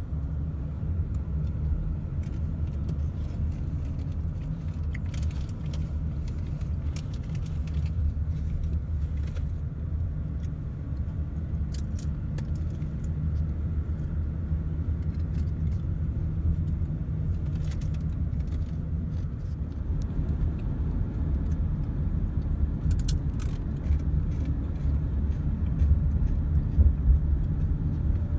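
Road noise inside a moving car's cabin: a steady low rumble of engine and tyres, with scattered small clicks and rattles.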